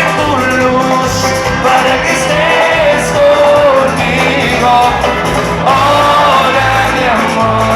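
Loud live cuarteto band music, with a melody carried over a steady bass beat.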